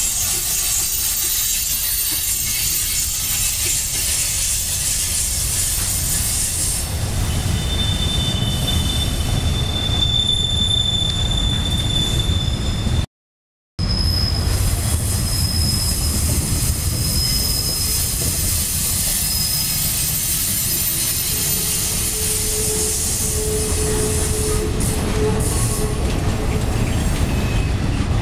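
A freight train rolling past close by: a steady rumble of steel wheels on the rails, with the wheels squealing in long high-pitched tones at several points. The sound cuts out for under a second about halfway through.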